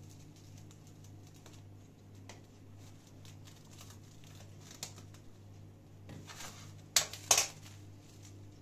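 Plastic cling film crinkling as it is pulled from the roll, smoothed over a tray and tucked in, with two short, loud crackles about seven seconds in. A steady low hum runs underneath.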